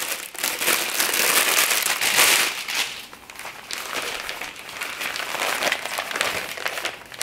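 Thin clear plastic packaging bag crinkling and crackling loudly as it is pulled off and crumpled, dropping after about two and a half seconds to quieter crinkling and rustling as the folded reflector fabric is handled.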